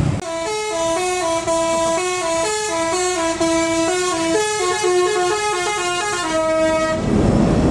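Telolet basuri musical horn on a tour bus playing a fast tune of stepped notes. It starts just after the beginning and stops about seven seconds in.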